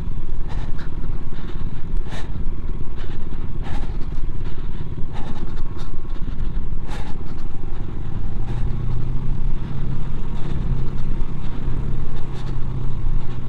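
Motorcycle running over a rough off-road track, a dense rumble with scattered knocks and rattles. A steadier low engine hum comes in about two-thirds of the way through.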